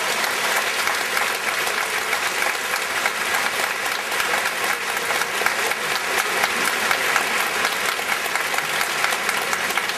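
Large hall audience applauding steadily, dense clapping for a point just awarded.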